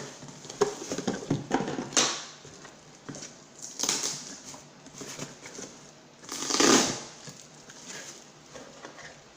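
Packaging crinkling and rustling as a shipped package is opened by hand, in irregular bursts with scattered clicks and a longer, louder rustle about two-thirds of the way through.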